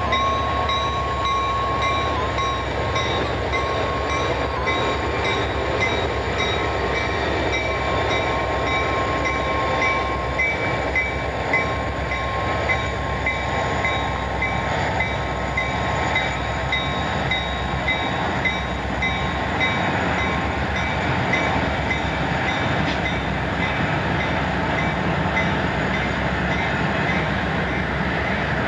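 CN diesel locomotives running past close by: a steady engine drone mixed with wheel and rail noise.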